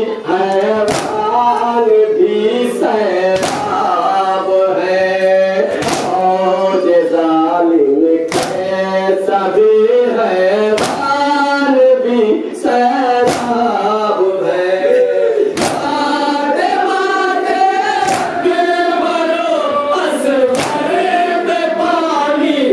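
A group of men chanting a Muharram nauha (lament) together in a steady melody, with sharp beats keeping time every second or two.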